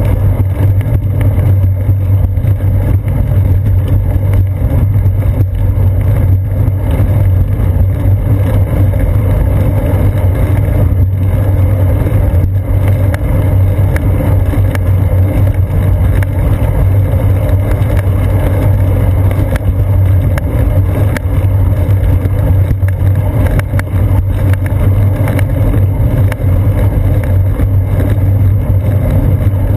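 Steady, loud low rumble and hum of a bicycle rolling along a concrete path, picked up through a seat-post-mounted GoPro in its housing: tyre and frame vibration and wind on the camera, with small ticks from bumps in the path.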